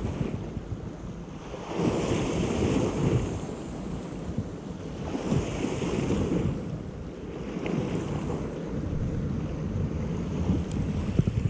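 Sea waves washing against shoreline rocks, swelling in surges a few seconds apart, with wind buffeting the microphone.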